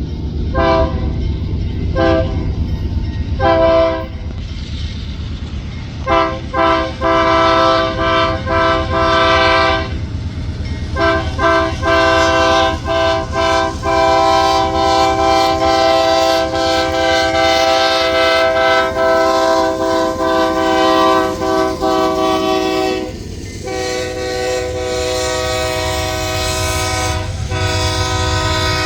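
Ferromex locomotive 4569's air horn sounding a chord of several tones in a horn show: three short blasts, then a run of stuttering blasts and a long held blast of about ten seconds, dropping to a quieter held blast near the end. A steady low rumble of the train runs underneath.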